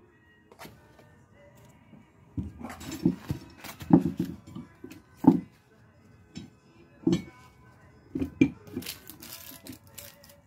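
Tools and wood handled on a worktable: irregular knocks and clatters as a spirit level and other tools are picked up and set down, with a brief rustle of a cloth or paper towel near the end.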